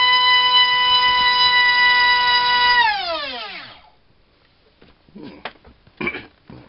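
Multistar Viking 1808 2600kV brushless outrunner motor spinning a 4.5x4.5 sports propeller at full throttle on a 4-cell battery: a loud, steady high whine. About three seconds in, it winds down in falling pitch and stops about a second later. After that come a few faint clicks and knocks.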